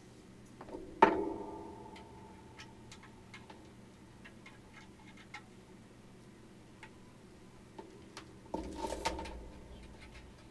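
Small plastic and metal microphone parts being handled and fitted together: scattered light ticks and taps, one sharp click about a second in that rings briefly, and a louder clatter of handling near the end.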